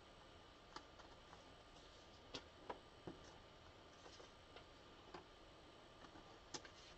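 Near silence: faint room tone with about a dozen small, irregular clicks and ticks, a few slightly louder ones around the middle and near the end.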